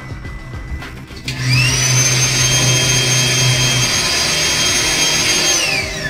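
Small handheld electric blower switched on about a second in. Its motor whine rises quickly to a steady high pitch over a rush of air, holds steady, then falls away as it winds down near the end.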